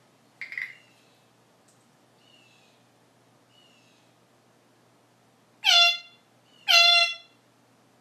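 African grey parrot giving two loud, horn-like calls about a second apart, each lasting about half a second, with a shorter call just before the first second and soft falling chirps between.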